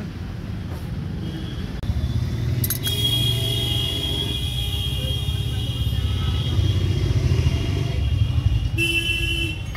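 Steady low rumble of road traffic, with a long high-pitched vehicle horn sounding from about three seconds in and a shorter toot near the end.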